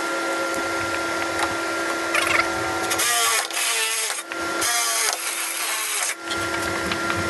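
Cordless drill with a 5/16-inch bit drilling out pilot holes in a golf cart's metal rear-seat frame tube. From about three seconds in, the bit scrapes and grinds through the metal in several bursts with short pauses between.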